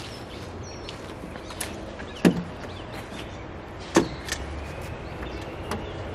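Two sharp knocks about a second and a half apart, with a few lighter clicks, from a canvas cover being worked loose from a small aluminium boat on its trailer. Birds chirp faintly behind.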